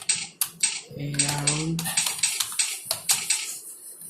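Computer keyboard being typed on: quick, irregular key clicks, several a second, with a brief pause near the end.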